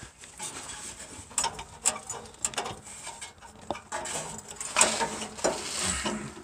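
Hands working a fuel line quick-connect fitting onto a fuel filter: irregular small clicks, knocks and scraping of metal and plastic parts, busiest about five seconds in.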